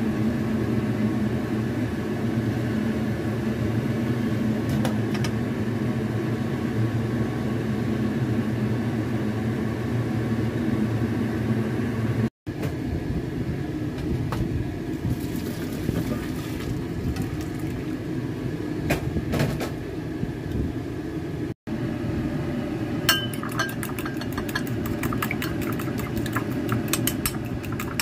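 Kitchen sounds over a steady low hum: first a pot of boiled mixed vegetables on a gas stove, then the vegetables tipped through a metal strainer into a stainless steel sink. Near the end comes a fork quickly beating eggs in a bowl, a fast run of clicks.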